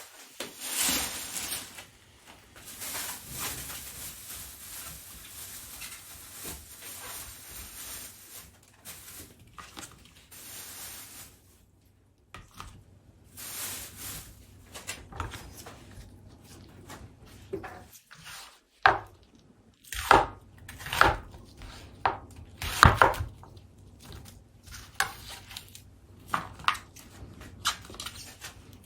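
Kitchen knife chopping on a cutting board: light, irregular taps at first, then a run of louder, sharper strikes in the second half.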